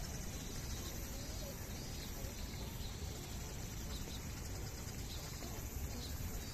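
Steady outdoor background rumble with faint, short high chirps scattered through it.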